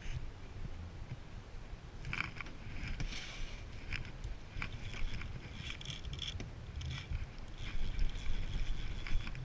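Short metallic clicks and scrapes from the handle of an Okuma Coronado spinning reel being fitted and screwed into place, over a steady low rumble.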